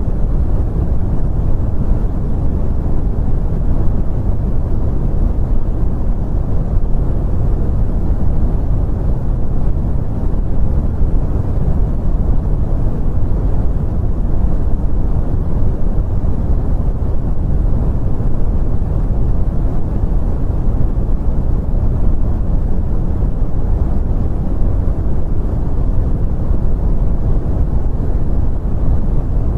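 Brown noise: a steady, deep rumbling hiss weighted toward the low end, with no change or rhythm.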